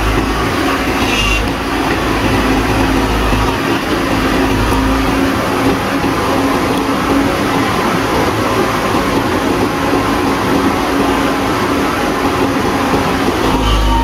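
JCB tracked excavator's diesel engine running steadily as the machine moves, a constant loud drone with a low hum underneath.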